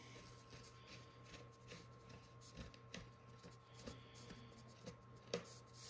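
Near silence: a few faint light clicks and rustles of hands handling a foam model jet's horizontal stabilizer and its metal mounting bolt, over a steady low hum.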